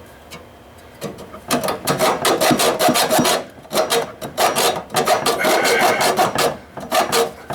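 Sandpaper scrubbed back and forth by hand on a pipe end, cleaning it for soldering. Quick scraping strokes, several a second, start about a second in and come in runs with short pauses.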